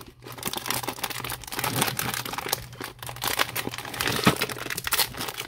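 Clear plastic bag of jewelry crinkling and crackling as hands pull and pick at its sealed top, trying to open it; a dense, uneven run of crackles throughout.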